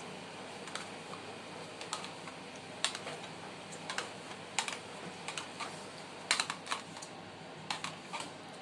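A spoon scooping thick Greek yogurt into a glass bowl: scattered light clicks and taps of the spoon against the container and the bowl, coming irregularly in small clusters.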